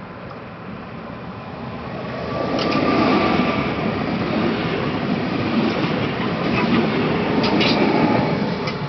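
Newag Impuls ED78 electric multiple unit running through the station at speed close by: a rushing rumble that builds from about two seconds in and drops away near the end, with a few sharp wheel clicks over rail joints.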